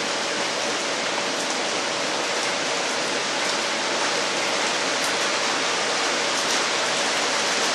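Steady, even hiss like rain or running water, with a few faint ticks late on.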